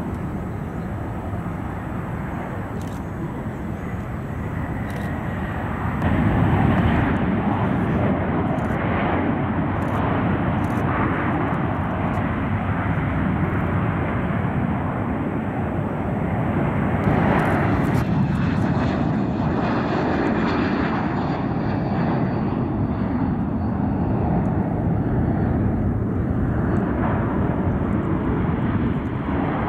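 Boeing 737 jet engines running at takeoff power: a steady jet roar that gets louder about six seconds in, with a thin high whine that slides down in pitch later on as the plane passes and climbs away.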